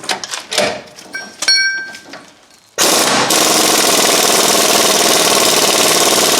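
A few light metal clicks and a brief metallic ring, then about three seconds in a power impact wrench starts hammering steadily, turning the screw of a ball joint press to drive a new lower ball joint into the control arm.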